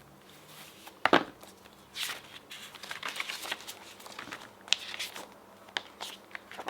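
Paper and cardboard rustling with light clicks as the contents of an iPad box are handled, with one sharp knock about a second in.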